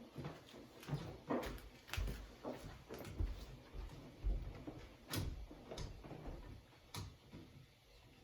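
Irregular light clicks and knocks of a screwdriver working the mounting screws of a wall light switch, some with a low thud.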